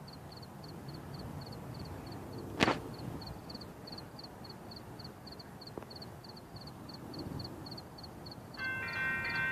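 A railroad crossing's warning bell starts ringing about a second before the end, steady and bell-like, as the signals activate for an approaching train. Before it there is a steady high-pitched chirping, about three to four chirps a second, and one sharp knock about two and a half seconds in.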